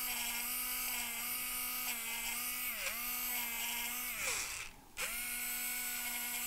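Electric eraser's small motor whining steadily as it spins against drawing paper. Its pitch dips briefly about three seconds in. Just before five seconds it falls away and cuts out for about half a second, then spins back up.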